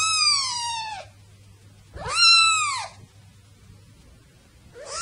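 Young kitten mewing: high-pitched calls that fall in pitch, one at the start, a louder one about two seconds in, and a third beginning near the end.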